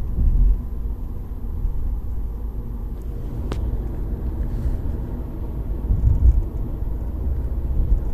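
Low, steady rumble of a BMW E90 3 Series car, with a single sharp click about three and a half seconds in.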